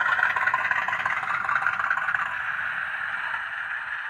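Model Class 50 diesel locomotive's engine sound, played by a TTS DCC sound decoder through a small upgraded speaker: a steady, rushing engine note that slowly dies away.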